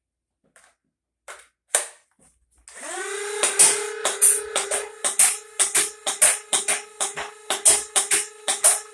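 Flywheel-powered semi-automatic foam-dart blaster, an Impact 498 Lightning Bug on a 2S LiPo battery, spinning up its flywheels to a steady high hum, then firing a rapid string of darts at about three shots a second while the flywheels keep spinning. A few handling clicks come before the spin-up.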